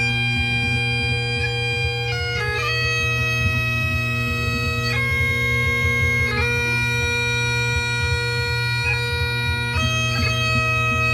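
Bagpipes playing a slow tune: a steady drone underneath a chanter melody of long held notes that step from one pitch to the next.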